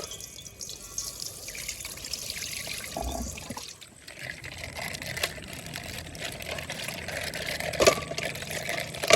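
Coloured water trickling and pouring out of a punctured plastic bag, with scattered clicks, a dull thump about three seconds in and a sharper knock near the end.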